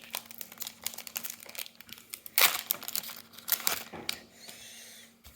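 Trading card booster pack wrapper crinkling and tearing as it is opened by hand: irregular crackling rustles, with the loudest rip about halfway through.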